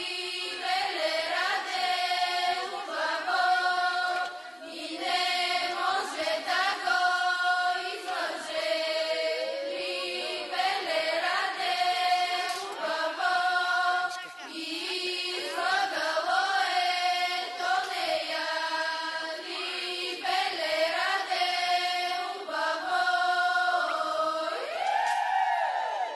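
A group of voices singing a Bulgarian folk song in chorus, unaccompanied, in phrases of long held notes. Near the end the singing breaks off into a high, arching glide.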